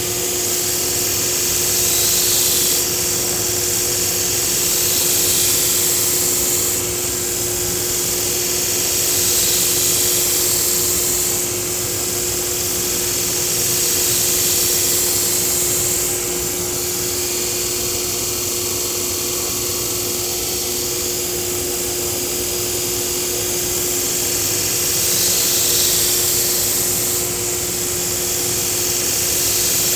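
Belt grinder running with a steady hum, while a Japanese nakiri kitchen knife's steel blade is ground against the abrasive belt in repeated passes. A high hiss swells and fades every few seconds, about seven times in all, as the edge is cleaned up after thinning.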